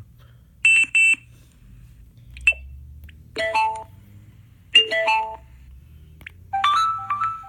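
A series of short electronic alert tones from a Bluetooth speaker, fed from a Nintendo 3DS through an LM386 amplifier: two quick high beeps, a brief blip, two chimes of several notes, then a quick run of notes near the end that is the iMessage alert.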